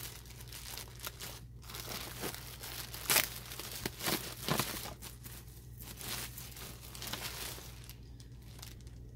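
Packaging crinkling in irregular crackles as a skein of yarn is unwrapped and handled, dying down near the end.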